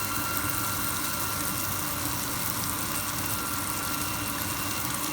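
Steady hiss with a constant hum from cooking on a kitchen stove, unchanging in level.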